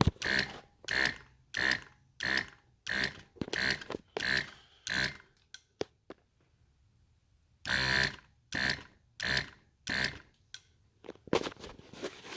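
12-volt air compressor on a pressure switch with no tank, cycling on and off very fast: short bursts of running about one and a half times a second. It stops for about two seconds midway, then starts cycling again. With no tank, pressure builds instantly, so the switch short-cycles.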